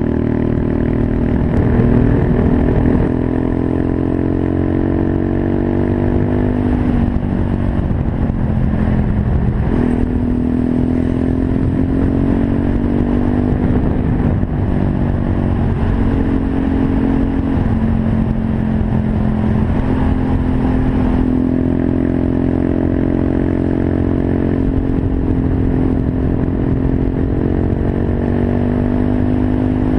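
Monkey bike's small single-cylinder engine running under way, its pitch rising and falling again and again with throttle and gear changes.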